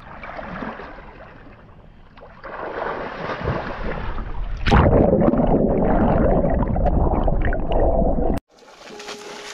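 Water splashing and churning as a swimmer in a mermaid tail goes into a clear spring, then a loud, muffled underwater rush of bubbles from about five seconds in as the camera goes under. It cuts off abruptly near the end.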